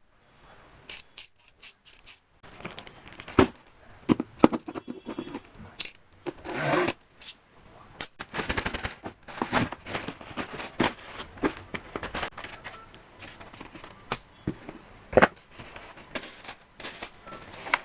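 Shoe box and its packaging being handled and opened: irregular sharp clicks and taps mixed with short bursts of crinkling, tearing and scraping.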